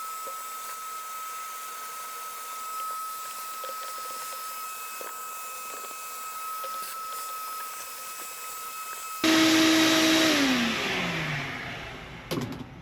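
Vacuum cleaner motor running with a steady whine and airflow hiss. About nine seconds in it gets louder, then is switched off, its pitch falling as the motor winds down.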